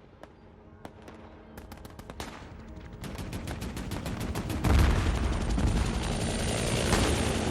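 Gunfire in a film soundtrack: scattered shots that come faster and louder until, a little under five seconds in, they merge into a heavy, continuous barrage with a deep rumble.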